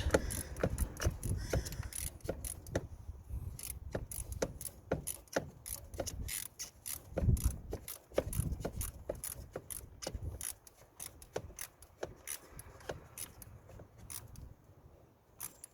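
An E8 bolt on a radiator cooling fan being tightened with a hand tool: irregular clicking and scraping of metal on metal as the tool works the bolt home.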